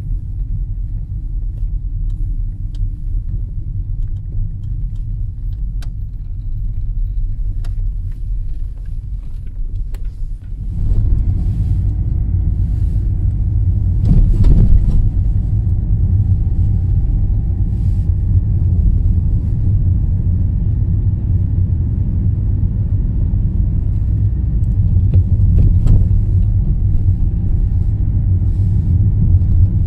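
Car driving along, a steady low rumble of engine and tyres heard from inside the cabin, getting louder about eleven seconds in, with a few faint light knocks.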